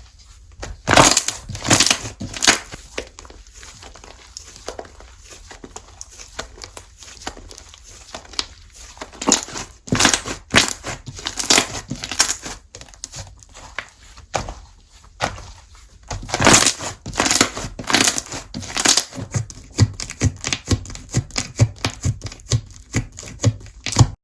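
Slime being squished and pressed by hand, making irregular sticky crackles and pops in quick runs, loudest in bursts about a second in, around ten seconds in, and through the last third.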